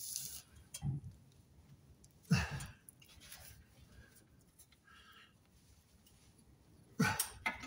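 A few separate clicks and knocks of hand tools being handled against metal, with quiet stretches between: the loudest knock comes about two seconds in, and a quick run of clicks comes near the end.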